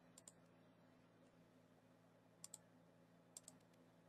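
Faint computer mouse clicks: three quick pairs of short clicks spread over a few seconds, over near silence with a faint steady hum.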